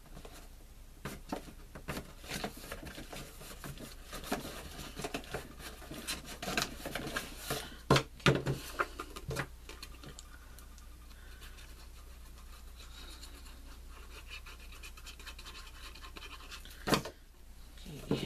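Paper and cardstock rustling and scraping as green cardstock lining is pressed into a paper gift box, with a few sharp knocks about eight and nine seconds in and again near the end. The handling goes quieter for several seconds in between.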